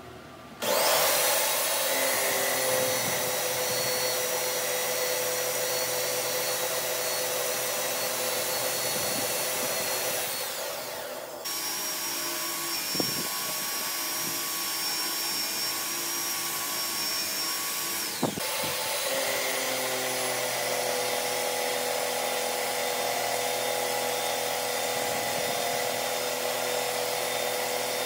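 Metalworking machine spindle running as a spiral-fluted end mill shapes the end of a steel shaft. It runs with a steady whine over a hiss. About ten seconds in its pitch sinks, and a new steady run begins; later come two sharp clicks and a short break before it runs steadily again.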